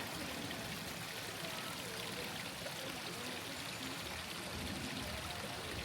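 Water flowing steadily in a stream, a constant even rush with light gurgling.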